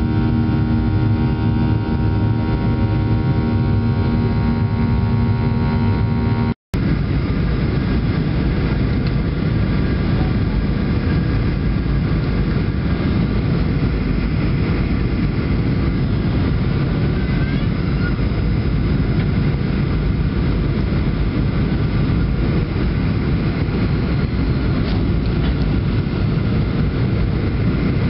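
Cabin noise inside a Boeing 737-800 with CFM56-7B turbofans, seen from a window seat over the wing. First comes the steady engine hum with several held tones during the climb after takeoff. After a brief cut about six and a half seconds in comes a steady rumble of engine and airflow on the approach to landing.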